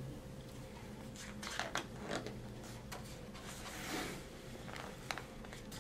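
Pages of a hardcover picture book being handled and turned: faint paper rustling with a few light taps, and a soft swish of the page about four seconds in.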